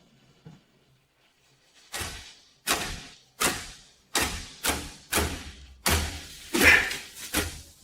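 A run of about ten sharp thumps starting about two seconds in, coming roughly every half second, each fading out quickly.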